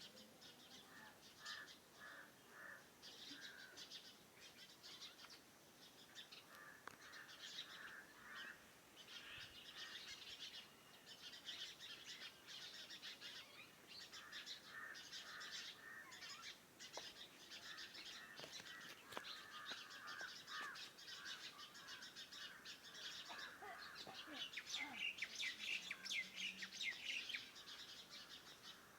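A chorus of several small birds chirping and calling together: dense, quick high chirps with a repeated lower call running through most of it. It grows louder near the end.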